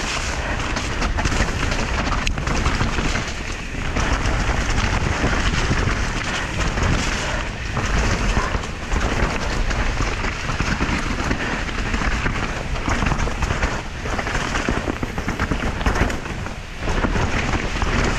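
Downhill mountain bike descending a wet dirt trail at speed: a continuous loud rumble of wind buffeting the action camera's microphone, with frequent knocks and rattles as the tyres and bike run over rocks, roots and mud.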